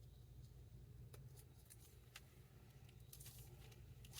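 Near silence: a steady low room hum with a few faint, short clicks, like light handling noises.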